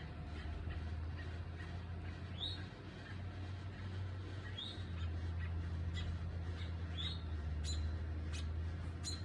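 A bird calling outdoors: a short, high chirp that drops in pitch, repeated about every two seconds, with a few quicker sharp chips near the end. A low steady hum runs underneath.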